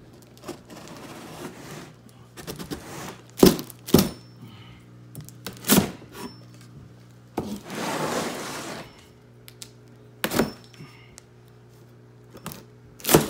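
A hatchet blade chopping into and slicing through a cardboard box and its tape. Several sharp knocks come as the blade strikes the box, with two longer stretches of cardboard tearing and scraping, the first about a second in and the second near the middle.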